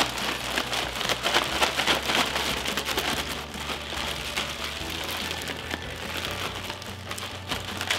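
A gallon zip-top plastic bag holding sliced bell peppers and shrimp being shaken and worked by hand to coat them with oil and seasoning: a dense crinkling rustle that grows softer after about three seconds.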